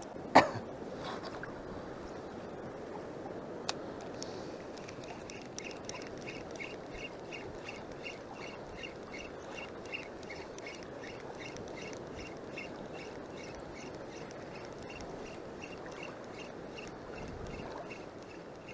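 Spinning reel being cranked steadily on a retrieve, a rhythmic ticking about three times a second, over the steady wash of shallow sea water.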